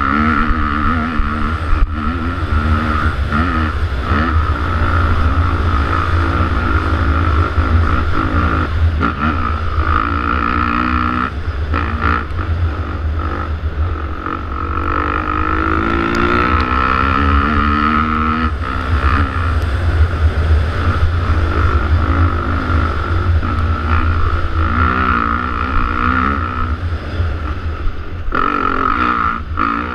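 Enduro motorcycle engine running under load as the bike is ridden over a rough dirt track, its pitch rising and falling with the throttle and climbing steadily about halfway through, with a heavy low rumble of wind on the microphone and occasional knocks from bumps.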